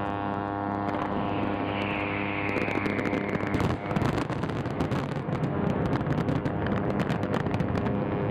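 A ship's horn sounds a long, steady low blast that cuts off about two and a half seconds in. A falling whistle and then rapid fireworks bangs and crackling take over.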